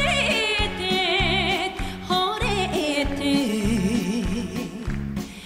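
A woman sings a Japanese popular song in a strong voice with wide vibrato, backed by a live orchestra with a regular bass beat. Her sung phrase ends a little before the close, leaving only the accompaniment.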